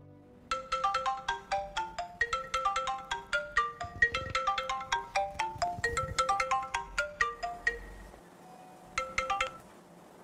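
Mobile phone ringtone: a fast melody of short notes ringing from about half a second in to about eight seconds, then a few notes again near the end, an incoming call.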